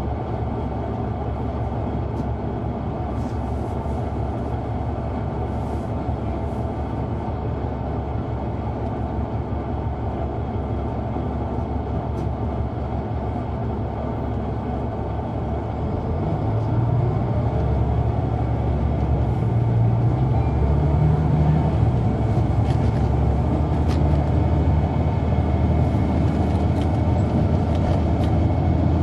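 Caterpillar C9 ACERT diesel of a 2004 Neoplan AN459 articulated transit bus, heard from on board, running steadily while the bus drives. About halfway through it grows louder and its low drone rises a little in pitch as the engine revs up.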